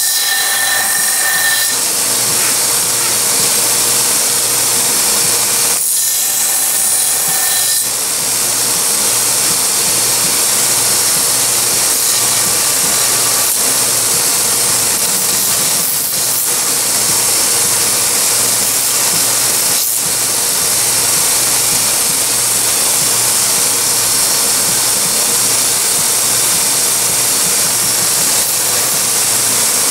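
Small bench belt grinder running steadily, its narrow sanding belt grinding a knife's handle scales flush after epoxying, a continuous sanding noise over the motor's hum.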